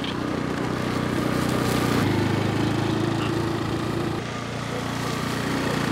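Small motorbike engine running while riding along, its note shifting about two seconds in and again just after four seconds.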